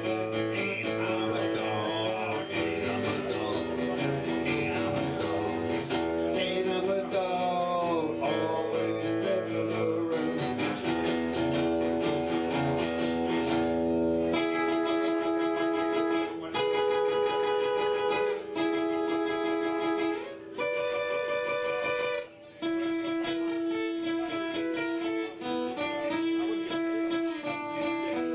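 Acoustic guitar playing an instrumental break in a song. A picked lead with string bends runs over bass notes, then from about halfway it changes to ringing strummed chords with a few short stops.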